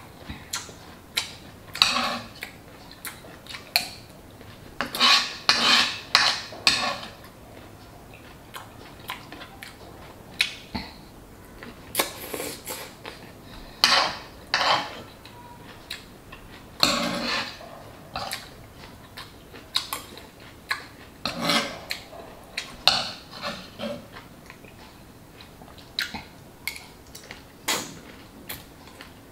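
Metal spoon clinking and scraping against a frying pan as food is scooped up to eat: irregular sharp clicks and short scrapes, some in quick clusters.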